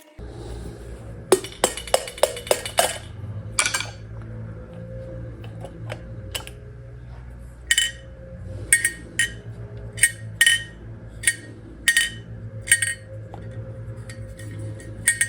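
Small metal parts clinking and tapping as a carburetor float bowl is taken apart by hand: a quick flurry of clinks in the first few seconds, then single ringing clicks at a fairly even pace, about one every second, over a steady low hum.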